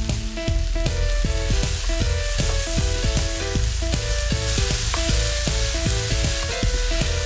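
Cabbage stir-fry sizzling in hot oil in a pan, with frequent clicks as it is stirred, over background music.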